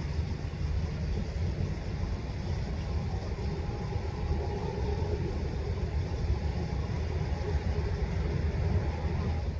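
River water running over a gravel bed: a steady low rumble.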